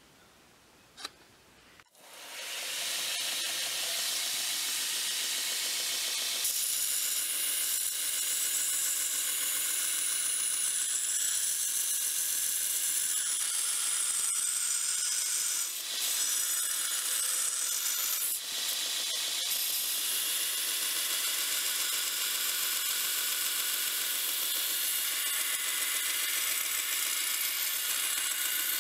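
Belt grinder running and grinding the bevel of a forged 5160 spring-steel knife blade held in a jig against the belt at the contact wheel, a steady hissing grind. It starts up about two seconds in.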